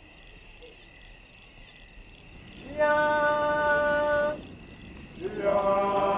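Crickets chirping steadily, then two long held notes at a steady pitch: the first about three seconds in, lasting a second and a half, the second lower and starting near the end.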